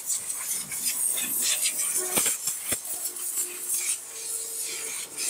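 Steady high hiss with two sharp metallic clicks a little past halfway, as a yellow AC service hose is handled at a fitting on a car's air-conditioning line.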